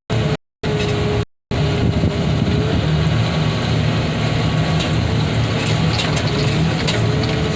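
CAT excavator's diesel engine running steadily, with a faint wavering whine over it. The sound cuts out to silence twice in the first second and a half.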